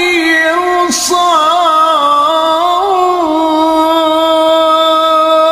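A male qari chanting Qur'an recitation solo in a melodic, drawn-out style. His voice winds through ornamented turns with a short break about a second in, then holds one long steady note.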